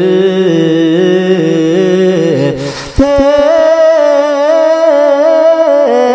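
A solo voice chanting Ethiopian Orthodox liturgical prayer in Ge'ez, drawing out long, wavering held notes in a melisma. It breaks for a breath about two and a half seconds in, then carries on at a higher pitch.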